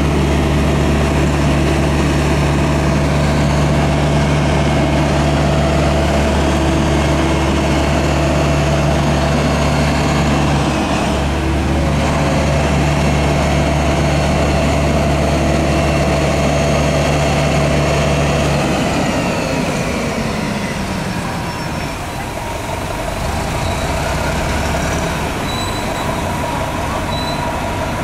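NovaBus RTS transit bus's diesel engine running loud and steady at raised revs, with a brief dip about ten seconds in. About two-thirds of the way through, the steady engine note drops away and a whine falls in pitch as the bus moves off.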